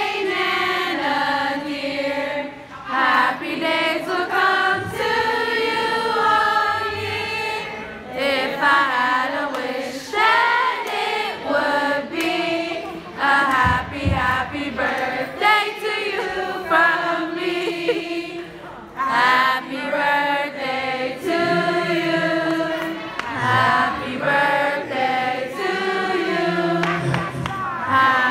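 A group of people singing a song together in chorus.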